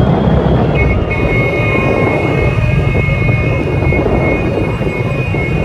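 Several motorcycles running at speed in a close pack, with wind on the microphone. A steady high-pitched tone joins about a second in.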